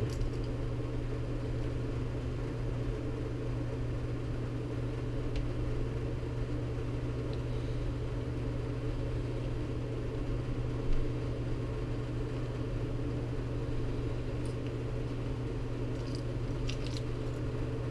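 Steady low mechanical hum of room background noise, with a faint knock or two from handling partway through.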